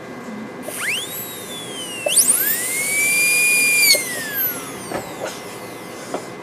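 High-speed dental drill with a 330 bur whining as it spins up: the pitch climbs, sags, climbs again and holds steady, then winds down a little after halfway, followed by a few light clicks.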